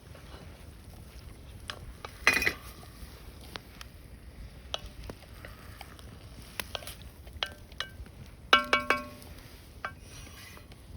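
A utensil stirring in a metal cooking pan: scattered clicks and scrapes, a louder scrape about two seconds in, and a ringing metal clink near the end.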